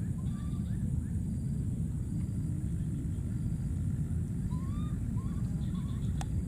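Steady low rumble of wind buffeting the microphone, with a few short, faint chirping calls rising and falling over it and a single click near the end.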